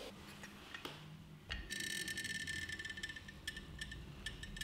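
Hand-squeezed caulk gun pushing acrylic caulk into a baseboard seam: a faint high squeak that lasts about two seconds, followed by several light clicks.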